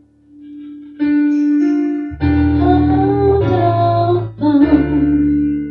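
Music: a song with guitar and a sustained sung melody; a full low bass comes in about two seconds in and stops shortly before the end.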